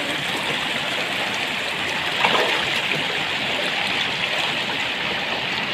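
Rocky mountain river rushing steadily over stones.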